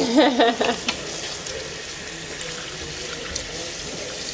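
Tap water running steadily into the sink of a hand-washing station while hands are washed under it. A voice is heard briefly in the first second.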